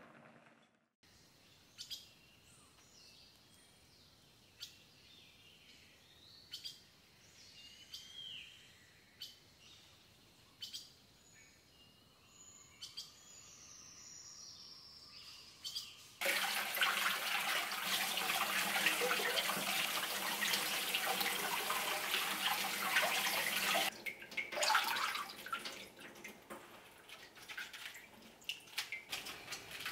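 Small birds chirping faintly. About halfway through, a kitchen tap starts running hard into a stainless-steel sink for about eight seconds, then gives way to lighter splashing and dripping as vegetables are rinsed by hand.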